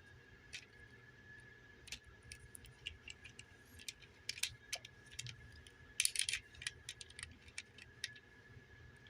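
Hard plastic parts clicking and tapping as 3D-printed accessories are handled and pressed onto a plastic toy figure: scattered sharp clicks, with a quick cluster about six seconds in, over a faint steady high whine.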